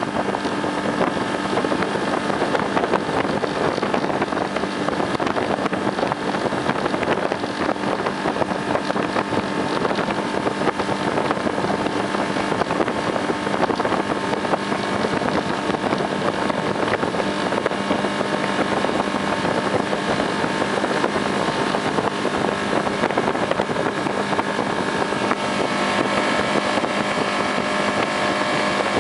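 Motorboat engine running steadily, holding one even pitch, over a constant rush of wind and water noise.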